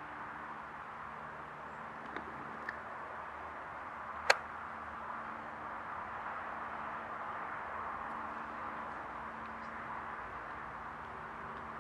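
Distant hovering helicopter heard as a faint, steady drone with a low hum under it. A sharp click about four seconds in, with two smaller ticks before it, is the loudest thing.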